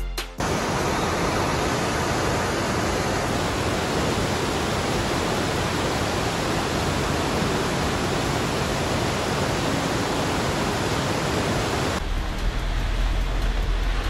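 Waterfall rushing steadily as water pours over rock ledges into a pool. Near the end it cuts to a softer hiss with a deep rumble.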